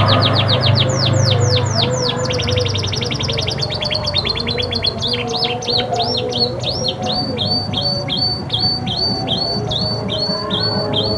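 Domestic canary singing in rapid trills of quickly repeated notes, switching to a new trill every second or two, over a steady low hum.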